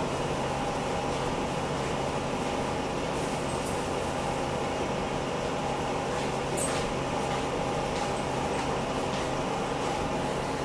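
Through-the-wall air conditioner unit running: a steady fan drone with a constant low hum.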